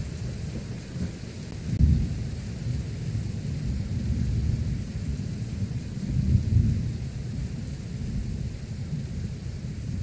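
Thunderstorm near a tornado: a low, noisy rumble that swells twice, about two seconds in and again around six and a half seconds in, over a steady hiss of rain.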